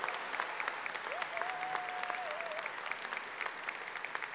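Audience applauding in a large hall, the clapping slowly fading. About a second in, one long held whoop rises out of the crowd and wavers before it stops.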